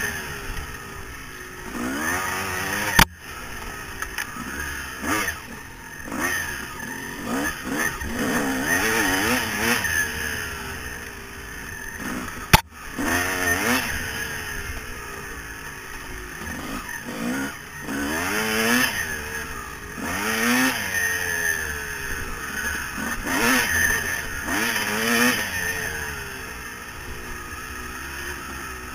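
Yamaha YZ250 two-stroke single engine revving up and dropping off over and over as the dirt bike is ridden hard through a trail course. Twice a sharp knock cuts through.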